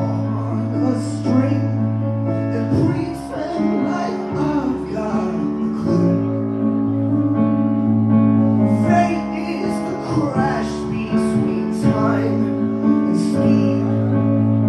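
Live band music: a synth keyboard plays held bass notes that change every few seconds, with chords above and a lead vocal over it.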